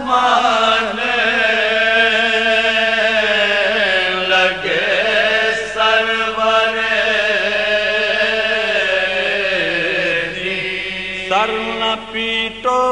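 Soazkhwani: a man's voice chanting a marsiya, the Urdu elegy for Karbala, in slow, long-held melodic lines that bend and glide in pitch.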